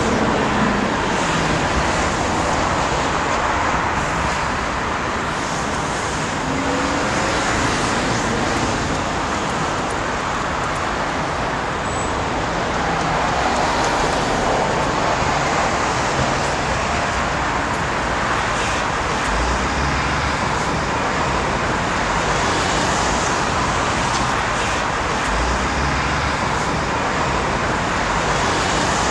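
Steady urban road-traffic noise, a continuous rush from passing vehicles, with two brief low rumbles in the second half.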